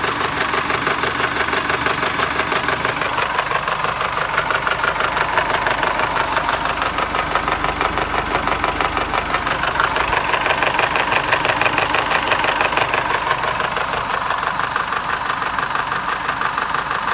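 Nissan X-Trail T30's YD22DDTi 2.2-litre four-cylinder turbodiesel idling hot with a steady rhythmic knock, the engine knock that shows up at operating temperature. It runs a little louder for a few seconds about ten seconds in.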